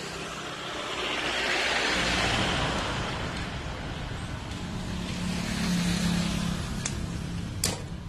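A road vehicle passing: its noise swells and fades about two seconds in, then a low engine hum rises and falls again later. A single sharp click near the end.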